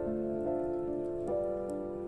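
Background piano music: a slow run of held notes and chords, changing about every half second.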